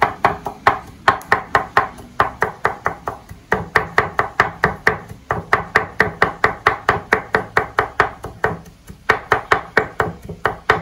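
Kitchen knife chopping onion on a cutting board, quick even strokes about four or five a second in runs broken by short pauses.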